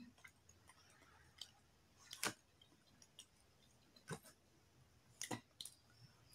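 Faint eating sounds: about half a dozen short, sharp clicks and smacks scattered over near silence as a person chews a mouthful of food.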